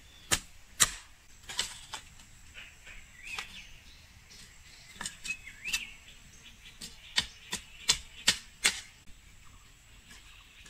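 Hoe blade chopping into garden soil: sharp strikes, singly and in runs of about two a second, stopping near the end. Faint bird chirps sound between the strokes.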